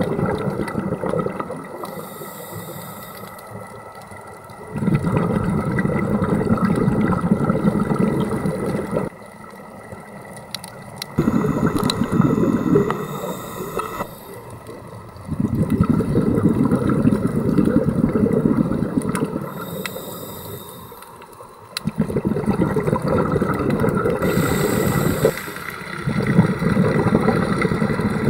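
Scuba diver breathing through a regulator underwater: a short hiss on each inhalation, then several seconds of bubbling exhaust on each exhalation, repeating breath after breath.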